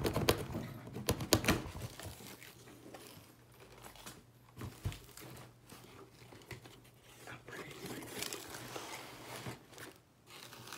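Cardboard shipping box being opened by hand: flaps pulled up with packing tape tearing and cardboard scraping. This is loudest in the first second or two, followed by quieter rustling, a single knock and more rustling near the end.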